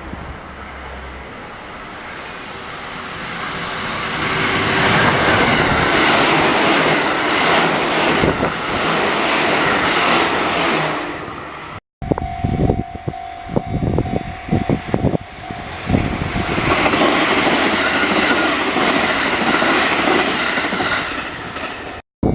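Trains passing a level crossing: a loud rushing rumble with the clack of wheels over rail joints builds up and fades. After a cut, a second pass has sharp wheel clacks and a steady tone over it, then the rushing rumble swells again.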